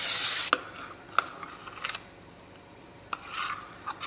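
Aerosol cooking-oil spray hissing into a nonstick skillet for about half a second, the loudest sound here. Then a few sharp clicks and light scraping as a spoon works pancake batter in the pan.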